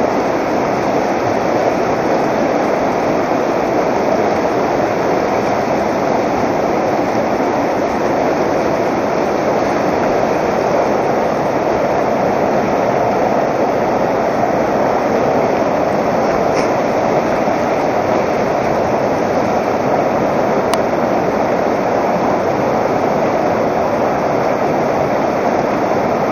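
Shallow mountain river rushing over a stony riffle close by: a steady, loud rush of water.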